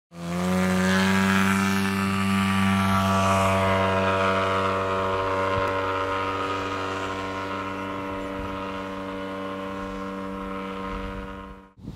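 Propeller engine of a radio-controlled model tow plane running at one steady pitch, slowly fading.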